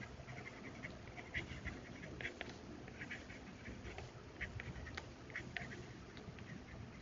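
Faint, irregular ticking and scratching of a stylus writing on a tablet screen.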